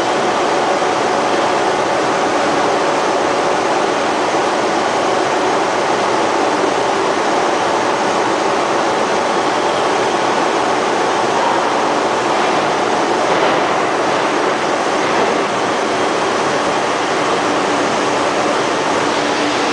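Steady, loud factory din, an even roar with a few faint humming tones and no distinct hammer blows.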